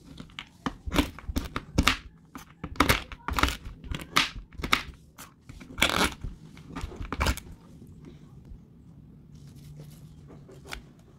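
A knife chopping mixed nuts (walnuts, almonds, cashews) on a wooden cutting board: quick, uneven chops with crunching, about three a second, stopping about seven and a half seconds in.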